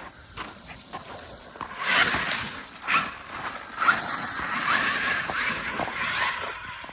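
Traxxas X-Maxx RC truck running, its brushless electric motor whining with short rises in pitch as it drives. The motor starts about two seconds in and eases off near the end.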